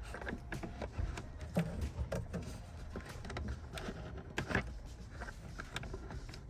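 Scattered light clicks, knocks and rubbing of hands working wires out of the rubber slots on a car's intake air box, over a low handling rumble.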